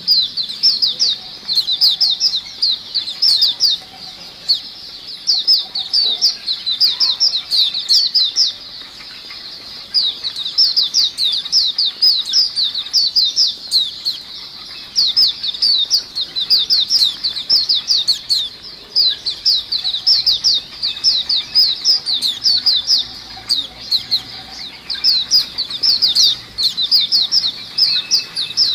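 A cage full of white-eyes (pleci) chirping busily: rapid runs of high, quick down-slurred notes that pause for a second or so every few seconds, with wing flutters among them.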